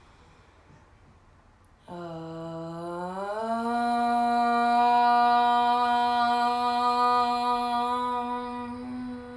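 A woman's voice chanting one long "Om". It starts about two seconds in at a lower pitch, rises after about a second, holds steady, and fades into a closing hum near the end.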